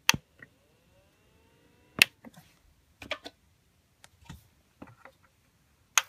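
Scattered sharp clicks and taps of the recording device being handled up against a humidifier's plastic housing. The loudest comes about two seconds in and a small cluster about three seconds in, with near silence between.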